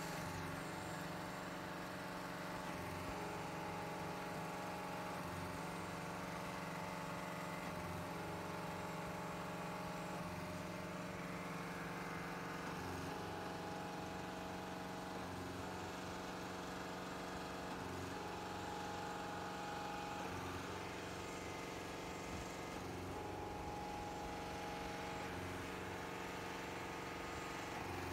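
Diesel engine of a trailer-mounted concrete pump running steadily while pumping concrete, with a regular change in its sound about every two and a half seconds as the pump strokes.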